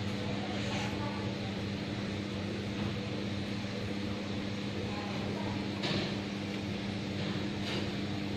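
Aquarium aeration running: a steady electric hum with a soft hiss of air bubbling into the tank.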